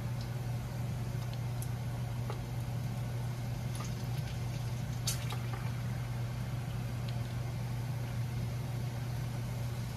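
A steady low hum runs under faint wet squelching and dripping as a hand works green chillies through thick pakora batter in a plastic bowl, with a few soft clicks, the sharpest about five seconds in.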